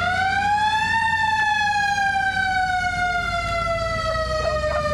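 Fire truck siren winding up to a peak about a second in, then slowly winding down in one long falling wail, with the truck's engine running low underneath.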